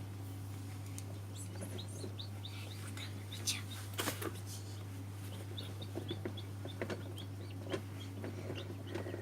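Newly hatched chicks peeping in short, high chirps, with a few sharp taps among them and a steady low hum underneath.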